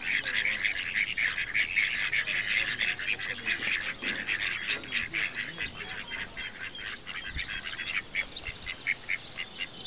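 A flock of mallards calling: a continuous chatter of short, rapid calls, easing off somewhat in the second half.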